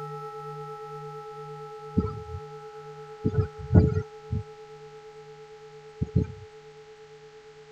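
A struck temple bell ringing out and slowly dying away, its clear ringing tones over a low hum that pulses a few times a second. Several dull low thumps fall in the middle.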